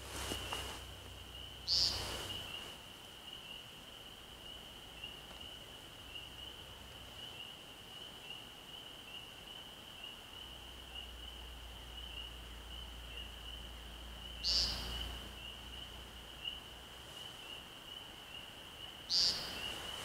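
American woodcock giving its short, buzzy, nasal peent call three times: once about two seconds in and twice near the end. The calls sound over a steady, high-pitched chorus.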